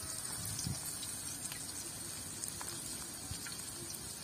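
Chopped onion sizzling in hot oil in a kadai: a steady frying hiss with a few faint crackles.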